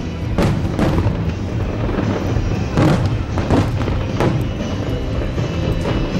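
Fireworks bursting with several sharp bangs over continuous music.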